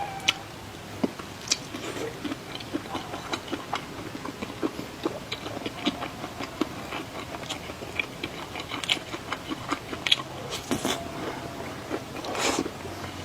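Close-up eating sounds: chewing sausage and pasta, with frequent irregular wet mouth smacks and small clicks.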